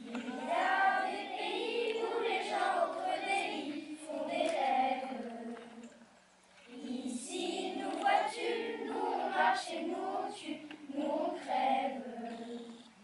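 A group of children singing together in phrases, with a short break about six seconds in.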